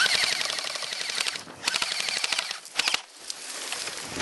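Airsoft rifles firing on full auto: two bursts of rapid clicks, each a little over a second long, then lighter fire toward the end.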